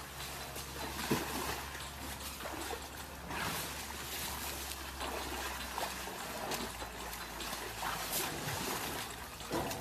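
Muddy water splashing and sloshing as an elephant calf kicks and wallows in a shallow puddle, with irregular splashes over a steady background hiss.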